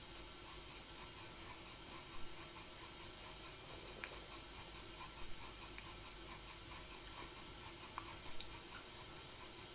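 Tea kettle simmering on the brazier, a faint steady hiss with a low hum, broken by a few soft clicks and taps of utensils.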